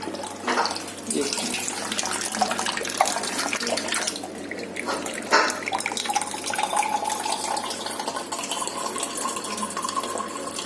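Water running into a glass from a water purifier, the pitch rising slowly in the second half as the glass fills. Two sharp knocks land about three and five seconds in.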